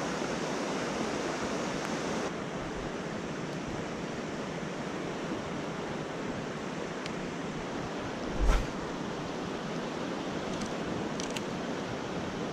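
River rapids rushing steadily over rocks. A brief thump about eight and a half seconds in.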